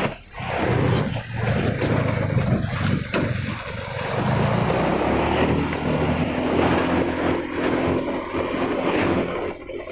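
A motor vehicle's engine running on the road, with a steady mix of engine, wind and road noise.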